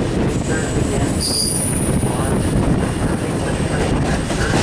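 Alaska Railroad passenger train rolling through a curve: a steady rumble of wheels on rail with thin, high-pitched wheel squeal, sharpest for a moment a bit over a second in.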